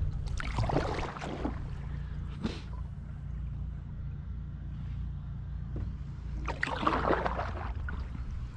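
Kayak paddle strokes: two watery swishes about six seconds apart, with a short knock in between, over a steady low rumble.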